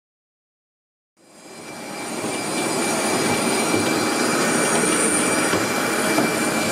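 Jet airliner engines running: a loud, steady roar with a constant high whine. It fades in after about a second of silence.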